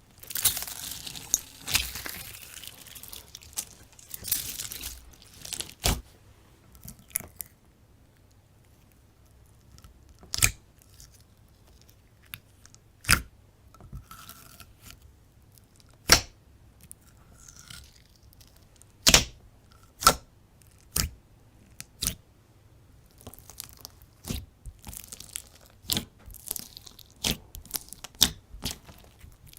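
Slime being worked by hand close to the microphone: a dense crackling for the first few seconds, then single sharp pops every few seconds, coming more often near the end.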